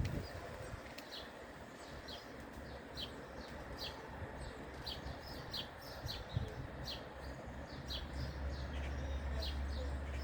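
Small birds chirping: short high chirps repeated about once or twice a second over a steady background hiss. A low steady hum joins near the end.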